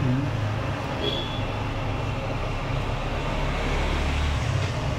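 A steady low background rumble with an even hiss, growing deeper and stronger for about a second near the end.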